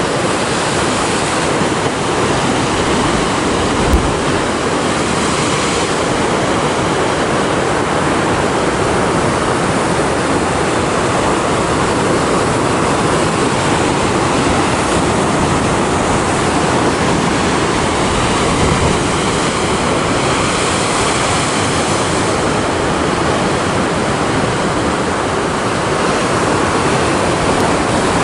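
Heavy sea surf surging and breaking against rocks in a narrow rocky cove: a loud, steady rush of churning, foaming water. A brief thump about four seconds in.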